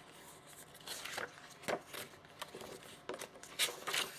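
Light rustling of paper and packaging with a few soft clicks and knocks as the contents of a small RC model kit box are handled.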